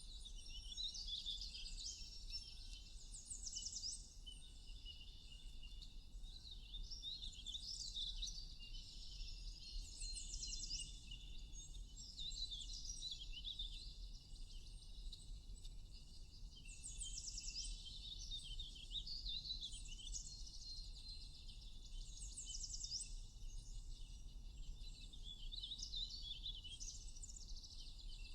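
Many small songbirds chirping and trilling at once, with a quick high trill standing out every few seconds, over a steady high-pitched drone.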